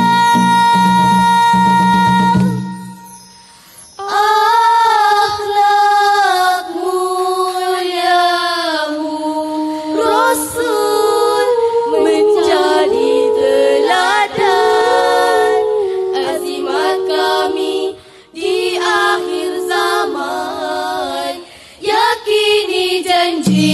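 Female nasyid group singing in harmony. A long held note with low percussion under it breaks off about two and a half seconds in. After a short gap the voices carry on unaccompanied, with brief pauses, and the low accompaniment comes back in at the very end.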